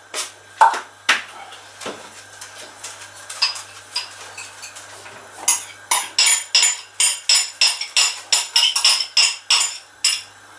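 Kitchen utensil clinking against a dish, with a few scattered knocks at first, then a quick, even run of about four strikes a second, like beating in a bowl, that stops near the end.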